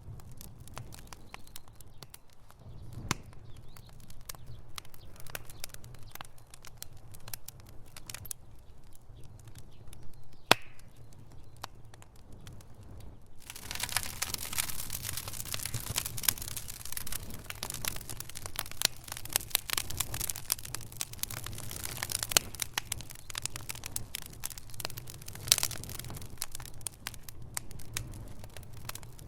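Fire crackling and popping in a fireplace over a low, steady rumble, with one sharp, louder pop about ten seconds in. Around the middle the crackling becomes much denser and brighter and carries on that way.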